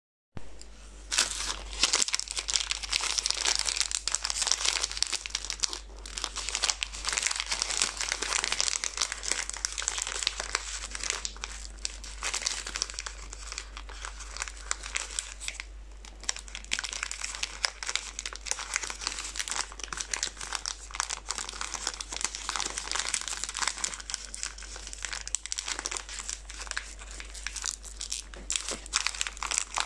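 Plastic chocolate-bar wrappers crinkling and tearing as fingers peel them open: a dense, continuous crackle with frequent sharper snaps.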